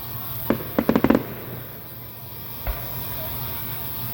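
Fireworks going off: a bang about half a second in, a quick string of sharp pops around one second in, and another bang near the three-second mark.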